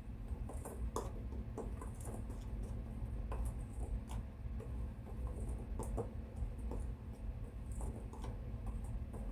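Scattered light clicks and taps of kitchen utensils and containers being handled while a seasoned flour-and-cornmeal breading is prepared, over a steady low hum.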